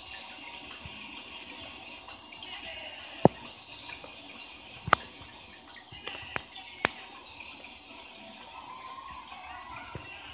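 Steady trickle of aquarium water, with a few sharp clicks about three, five and seven seconds in.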